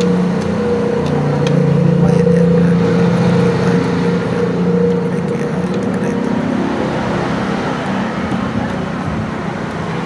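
A motor vehicle's engine running close by, a steady hum that shifts a little in pitch, with a few faint small clicks over it.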